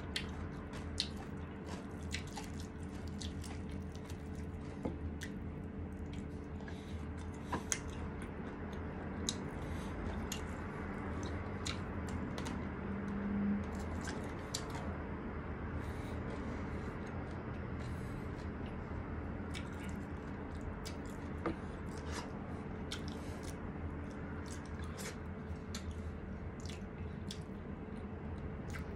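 Close-up chewing of grilled chicken, with wet mouth smacks and frequent short clicks, over a faint steady hum.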